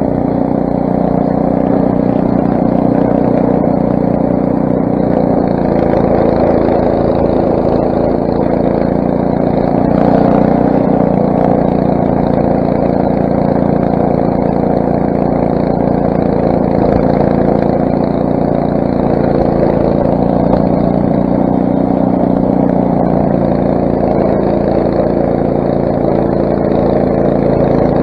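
Craftsman snowblower's 6 hp Briggs & Stratton single-cylinder engine running steadily under throttle.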